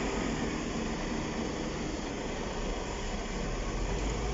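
Heavy diesel engine of a hydraulic excavator running steadily under load: a constant low rumble with a hiss over it, the rumble getting a little stronger about halfway through.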